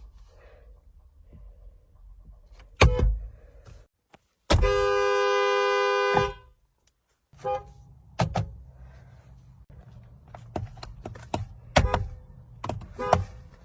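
A car horn sounds one steady blast of about a second and a half, two notes together, and cuts off abruptly. Several sharp thuds come before and after it.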